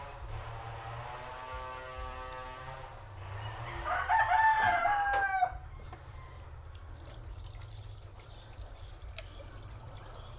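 A rooster crows once, loudly, about four seconds in, holding a level pitch for about a second and a half before breaking off. Before it, a fainter steady droning tone is heard.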